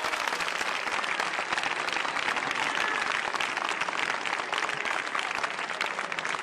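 Audience applauding: many people clapping in a steady, dense patter.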